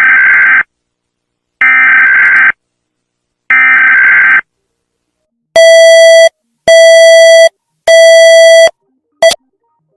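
Emergency Alert System tones: three screechy digital data bursts about a second long and a second apart, the warbling header that opens an EAS alert. About halfway through come three loud, buzzy beeps at a lower single pitch, then a short clipped blip.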